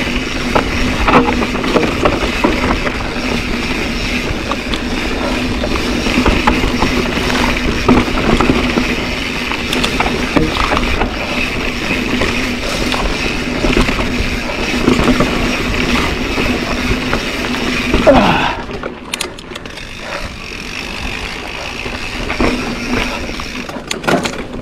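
Mountain bike ridden along a dirt singletrack: a steady rush of wind on the microphone and tyre noise on dirt, with clicks and rattles from the bike. About eighteen seconds in it turns quieter.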